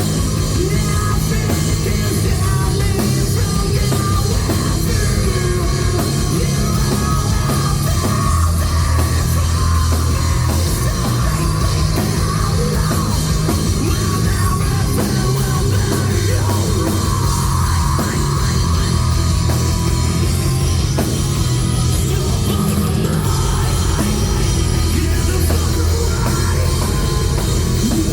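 Alternative metal band playing live at full volume: a heavy, steady wall of guitars and bass with a pounding drum kit.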